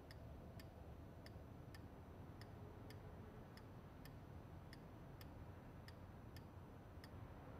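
Faint clock ticking steadily, close to three ticks a second, in a quiet room.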